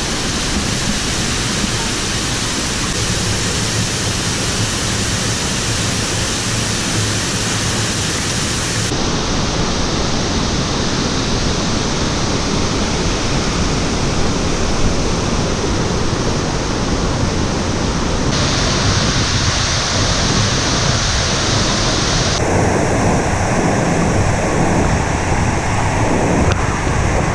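Waterfall rushing: a loud, even roar of falling water, with no other sound above it. Its tone shifts abruptly three times, about a third of the way in, about two-thirds in and near the end.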